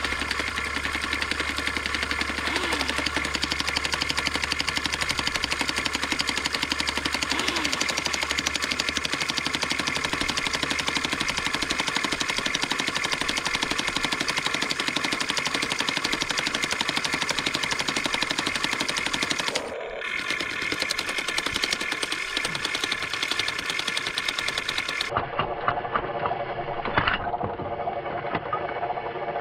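Radio-controlled Huina 1593 excavator working with its breaker hammer: a fast, steady mechanical rattle with a motor whine, typical of the hammer pounding rock. The sound breaks off and changes abruptly twice in the second half.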